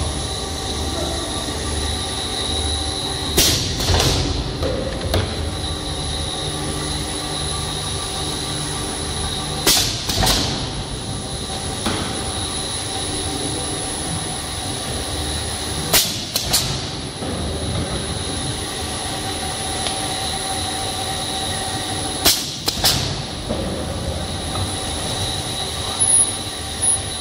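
Spiral paper tube machine running steadily, with a constant motor hum and a high whine. About every six seconds the tube-cutting unit cycles, giving a pair of sharp sudden sounds about half a second apart.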